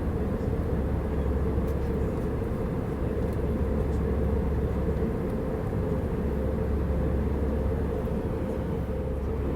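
Steady in-flight cabin drone of an Airbus A320-200, from engine and airflow noise, with a deep low hum and a steady mid-pitched tone running through it.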